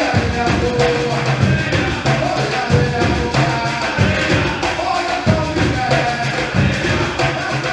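Percussion ensemble playing a steady driving rhythm, with heavy low drum strokes and singing over it.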